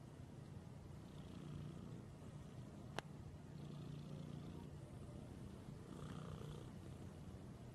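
Domestic cat purring steadily while being scratched, the purr swelling and easing every couple of seconds with its breathing. There is a single sharp click about three seconds in.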